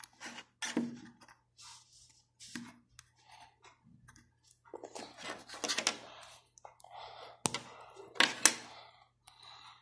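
Small plastic LEGO pieces being pulled off one plate and pressed onto the studs of another: scattered light clicks and snaps with handling rustle, the sharpest clicks about two-thirds through.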